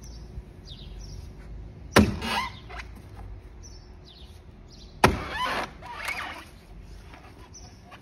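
Heavy blows of a long-handled tool striking a round of Washingtonia filifera palm trunk: two sharp impacts about three seconds apart, each followed by a short crackle of tearing palm fibre, and a lighter crunch about a second after the second blow.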